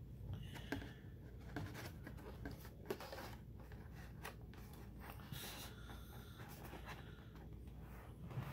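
Faint rustling and crinkling of stiff cardstock under the hands as the panels of a paper baseball cap are pressed and smoothed, with small scattered clicks and taps.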